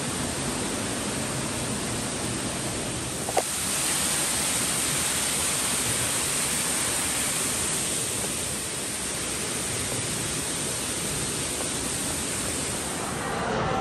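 Indoor rock waterfall splashing steadily into its pool, a constant rushing hiss.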